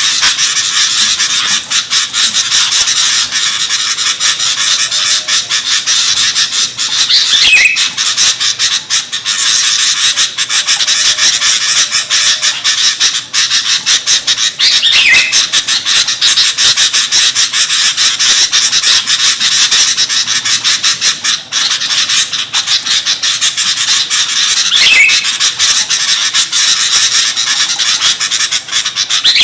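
Sooty-headed bulbuls (kutilang) in a loud, dense chorus of rapid chattering calls, a bird-lure recording. A clearer call that falls in pitch stands out four times.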